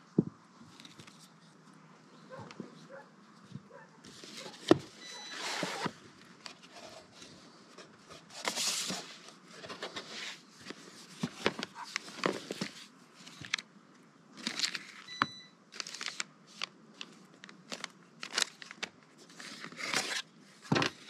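Cardboard packaging being handled and opened on a table: irregular rustles and scrapes of box parts sliding against each other, mixed with many sharp clicks and taps as items are picked up and set down. The loudest click comes about five seconds in.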